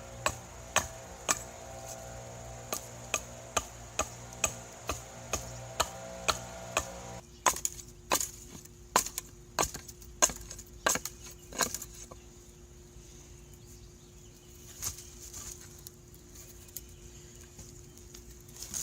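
A hand tool chopping into wood with steady blows about twice a second. After a break the blows come quicker and unevenly, then thin out to a few scattered strikes.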